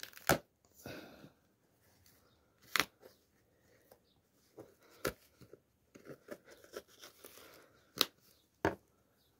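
Flat-blade screwdriver prying inside a sneaker's heel at a crumbling heel counter, breaking it loose: five sharp cracks a couple of seconds apart, with softer scraping and tearing in between.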